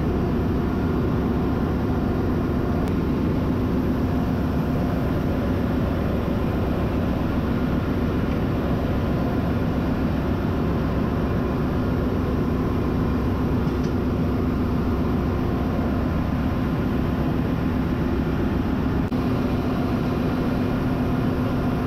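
Steady engine-room machinery drone with a constant low hum. This is the ship's auxiliary machinery running, not the main engine, which is stopped and opened up for piston overhaul.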